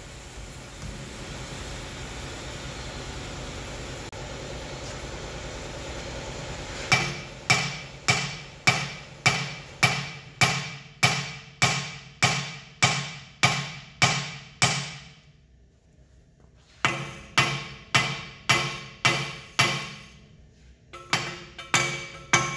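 Hammer blows on a three-arm puller clamped to a seized cast brake disc, struck to shock the disc loose while the puller holds it under tension. Each blow rings briefly and metallically, about two a second, in three runs with short pauses. A steady noise comes before the first blow.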